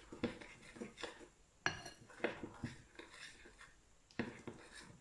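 Metal spoon stirring pancake batter in a glass bowl, clinking and scraping against the glass about twice a second in an uneven rhythm.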